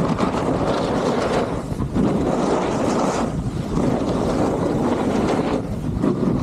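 Wind rushing over the microphone of a snowboarder riding downhill, with the hiss of the board sliding over snow; the rush swells and dips every second or two.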